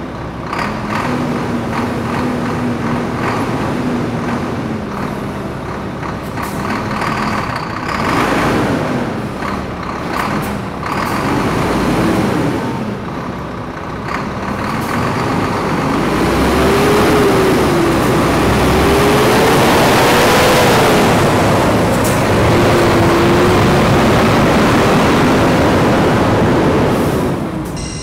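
Fire engine's diesel engine running and revving, its pitch rising and falling unevenly, growing louder about halfway through, with a couple of short hisses early on; it cuts off suddenly at the end.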